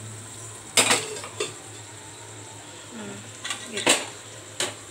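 Metal clanks of utensils against an opened aluminium pressure cooker: a sharp clank about a second in and another near four seconds, with a few lighter knocks between.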